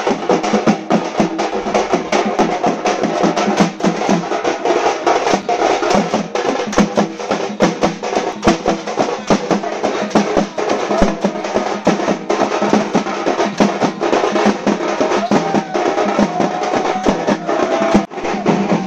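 A group of parai frame drums beaten in a fast, dense rhythm of rapid strokes. The drumming breaks off for a moment near the end.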